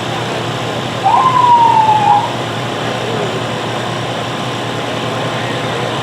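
A short police siren blip about a second in: a single tone that jumps up, slides slowly down for about a second, then cuts off. It sits over a steady background rumble.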